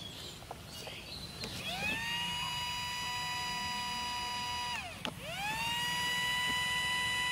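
Small battery-powered electric motor of a toy gatling bubble gun whirring, run twice: it spins up to a steady high whine about a second and a half in, winds down near the five-second mark, then starts again straight away and runs on to the end.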